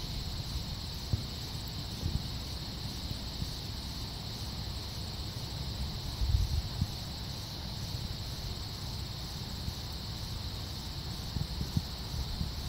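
Steady high-pitched chorus of insects, with low rumble and bumps of wind on the microphone.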